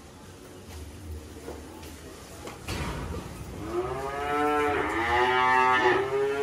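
Cattle mooing: one long, drawn-out moo starts about halfway through, rising in pitch at first and then held steady.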